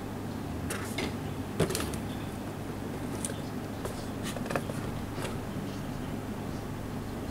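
Cardboard toy box being handled and turned over in the hands: scattered taps, scrapes and rustles, the sharpest about a second and a half in, over a steady low background hum.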